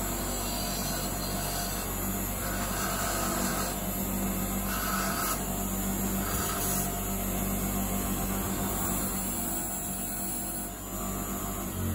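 Bench grinder's motor running steadily with a wire wheel, as a cast aluminium piece is pressed against the spinning wire brush to clean and polish it, giving a few short scratchy brushing passes.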